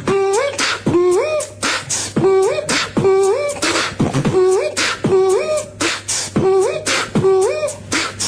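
Human beatboxing: a looped pattern of mouth-made kick and snare clicks with a hummed tone sliding upward in each bar, repeating in an even rhythm.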